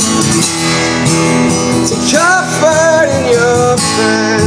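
Acoustic guitar strummed steadily under a man's singing voice, which comes in about two seconds in on a long held, wavering note.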